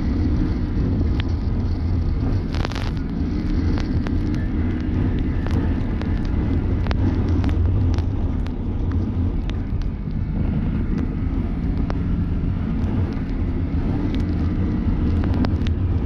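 Can-Am Maverick Sport X mr side-by-side's V-twin engine running under way, its revs rising and falling, with scattered sharp clicks and knocks over it, the strongest about two and a half seconds in.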